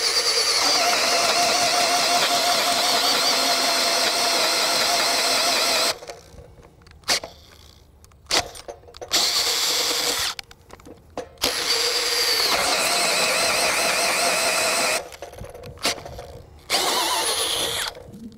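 Makita 40V XGT GPH01 brushless hammer drill-driver driving a large self-feed bore bit into wet lumber. It runs for about six seconds, stops, gives a few short trigger bursts, runs again for about three seconds, then more short bursts before stopping near the end. The stops come from the bit bogging under sustained torque.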